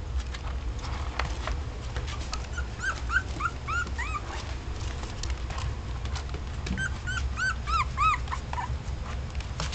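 Newborn F1B labradoodle puppies squeaking and whimpering in short, high, arched cries, in two runs of several cries each, over a steady low hum. The breeder takes them for hungry puppies trying to get to their mother to nurse.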